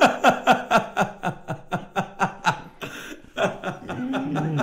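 Men laughing hard in quick repeated pulses, about five a second, each dropping in pitch. The laughter dips briefly about halfway through, picks up again, and ends in a longer held voiced sound.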